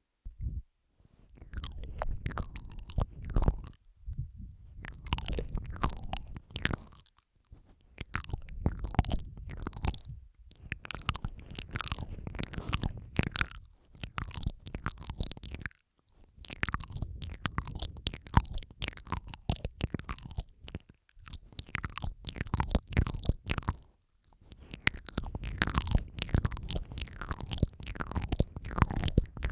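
Close-miked ASMR mouth sounds: wet clicking, smacking and licking, layered over one another in runs of a few seconds with brief pauses between.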